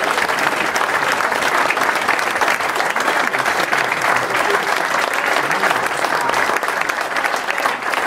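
A room full of guests applauding steadily, many hands clapping at once.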